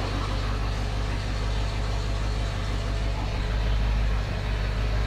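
Carbureted 351 Windsor V8 of a 1991 Ford F250 running steadily at idle.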